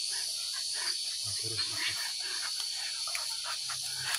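Leashed hunting dogs excited at the start of a boar hunt, straining forward and vocalising, with a few short low growls about a second and a half in.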